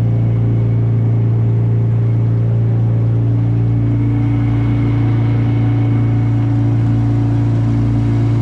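Outboard motor on a small aluminium tinny running steadily under way, a loud, even low drone. A second, higher steady tone joins about three seconds in.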